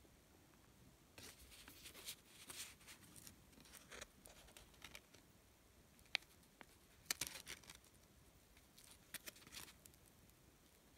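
Faint rustling and crinkling of a kraft paper envelope and a sticker being handled as the sticker is pressed on to seal the flap, with a couple of sharp ticks just past the middle.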